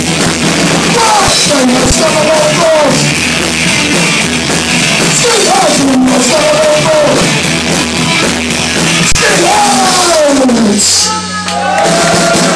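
Live Oi! punk band playing: drums with crashing cymbals, bass and guitar, and a singer's vocals over them. Near the end the drums and cymbals drop away briefly while a held bass note and the voice carry on, then the band comes back in.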